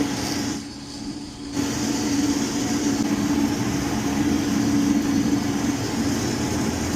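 Riello oil burner on a boiler starting up: about a second and a half in, a steady motor hum with a rush of air comes on and keeps running.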